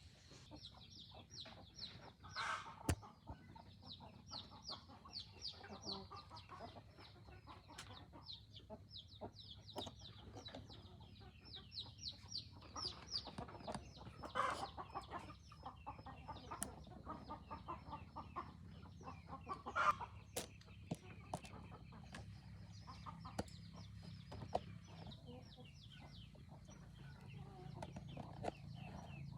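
A flock of free-range chickens clucking and calling, with runs of rapid high-pitched calls and scattered sharp taps throughout.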